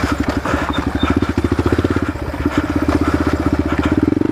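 Yamaha TTR125 dirt bike's single-cylinder four-stroke engine running under throttle while riding, its rapid firing pulses swelling and easing with the throttle and growing louder near the end.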